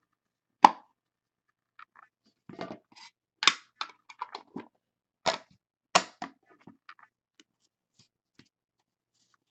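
Trading-card packaging and cards being handled: scattered clicks, taps and crinkles of cardboard and wrapper, a few sharper ones standing out.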